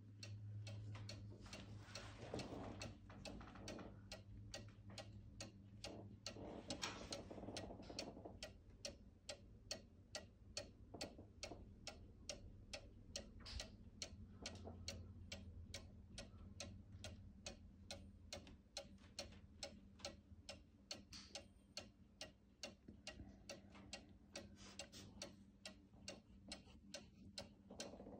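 A one-day cuckoo clock's movement ticking faintly, with a steady, evenly spaced tick-tock from the pendulum.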